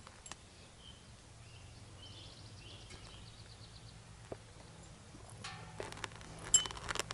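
Quiet outdoor background with faint bird chirps. Near the end come a few light metal clinks and rattles as the harnessed dogs shift about: harness and leash hardware jingling.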